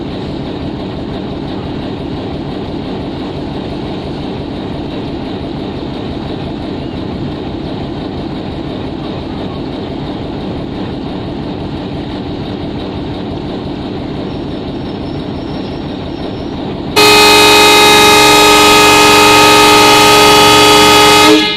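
WDM-3A diesel-electric locomotive running steadily at standstill with a deep engine rumble, then, near the end, a long, loud air-horn blast of about four seconds that cuts off sharply: the departure signal as the express is about to pull out.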